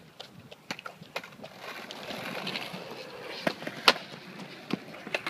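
Skateboard wheels rolling on concrete, the rolling growing louder from about a second and a half in, with a few light knocks and one sharp clack just before the end.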